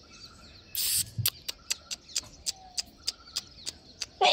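A person calling a horse by clicking the tongue about a dozen times, roughly three to four clicks a second, after a short hiss about a second in. A louder rush of noise starts right at the end.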